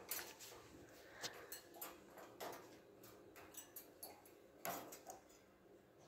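Faint, irregular clicks and taps from an African grey parrot in its metal wire cage, about a dozen scattered through, the loudest a little before five seconds in.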